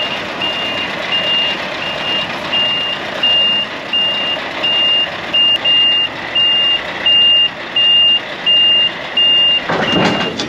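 Scania truck's reversing alarm beeping steadily, one high tone about every 0.6 seconds, over its diesel engine running, as the tractor unit backs under a low-loader trailer to couple up. A short burst of noise comes near the end.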